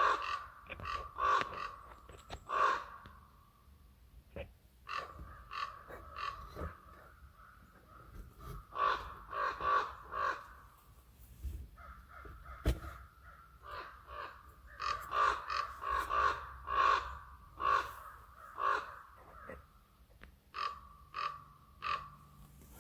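Ravens calling over and over at a bait site, many harsh short calls in quick runs with brief pauses between the runs.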